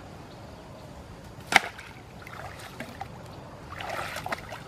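Shallow water splashing as a fish is shot with a bowfishing arrow and grabbed: one sharp smack of water about a second and a half in, then a short flurry of splashing near the end as the speared fish thrashes and is seized by hand.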